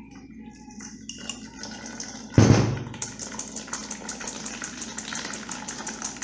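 Thick blended carrot-and-melon drink poured from a glass blender jar into a metal mesh strainer: a sudden heavy splash about two and a half seconds in, then a fast run of small splashing ticks as the liquid strains through the mesh.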